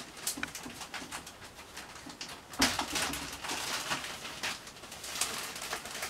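Clear plastic wrapping crinkling and rustling as it is pulled off foam model parts, in irregular crackles, louder for a second or so about two and a half seconds in.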